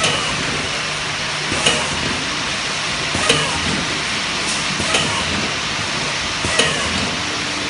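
Automatic bottle filling machine and its conveyor running: a steady mechanical hum and rattle, with a sharp clack repeating about every second and a half as the machine cycles.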